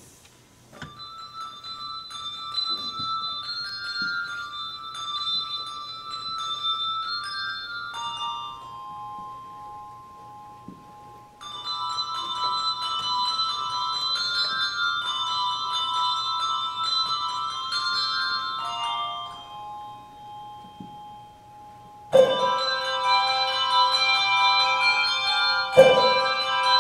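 Handbell choir ringing: quick repeated figures in the high bells over held ringing notes, easing to a few sustained tones twice. About twenty-two seconds in, the full choir enters much louder with lower bells added, and there is a loud struck accent near the end.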